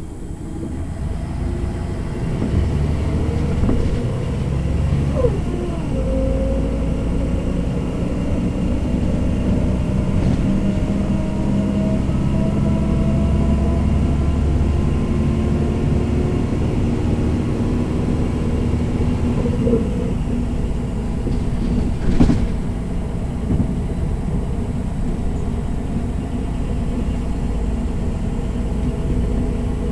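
MAN NG 313 articulated city bus under way, heard on board: its diesel engine drones deep and builds as the bus pulls, with a thin whine gliding up and down in pitch from the ZF automatic gearbox drivetrain. A single sharp knock comes about 22 seconds in.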